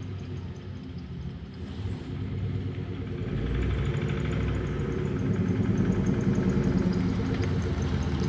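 An old 1955 Chevrolet sedan's engine running as the car drives slowly up, growing steadily louder as it approaches.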